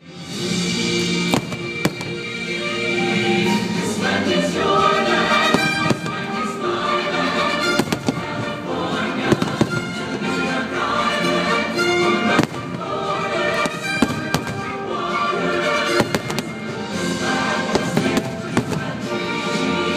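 Fireworks show: orchestral show music over loudspeakers, with firework bursts going off every second or two throughout.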